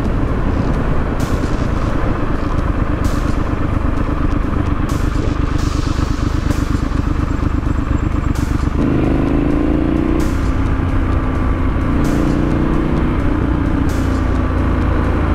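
Triumph Scrambler 900's 900 cc parallel-twin engine running through a Vance & Hines exhaust while riding, under steady wind noise. About nine seconds in the revs rise for a second or so as the bike accelerates, and they pick up again around twelve seconds.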